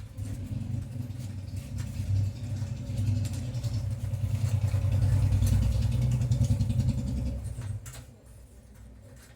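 A low, pulsing engine or motor hum that grows louder and then drops away about eight seconds in.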